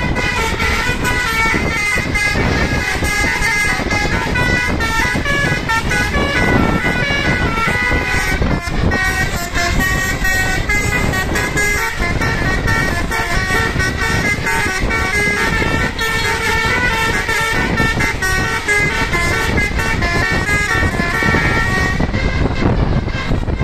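Basuri telolet bus horn playing a fast melody, its notes stepping up and down over the steady noise of the bus and road.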